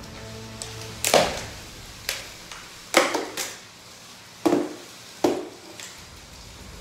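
Lego combat robots colliding: a spinning weapon strikes the opposing plastic robot with sharp cracks and clatters, about six hits spread irregularly across several seconds, over a faint steady motor hum.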